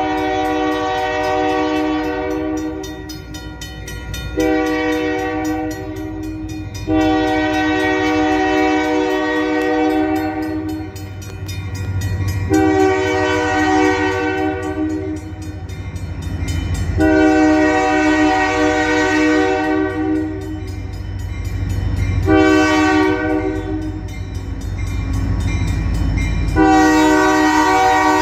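Diesel locomotive's multi-note air horn blowing a series of seven long and short blasts over the low rumble of the engine, which grows louder toward the end as the train comes closer.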